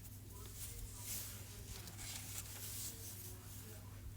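Quiet room tone: a steady low electrical hum with faint, soft rustling now and then.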